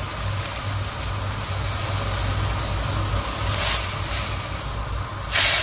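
Gravy boiling hard in a stainless steel kadai on a high gas flame: a steady bubbling hiss over a low hum. Cornflour slurry is poured in, with a louder hissing rush near the end.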